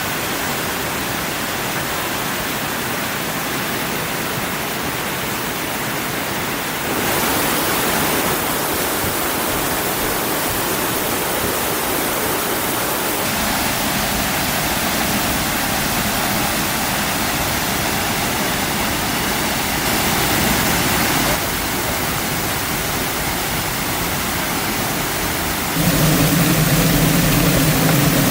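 Waterfall: a steady rush of falling water whose tone shifts slightly at several cuts. Near the end a louder low steady hum joins in.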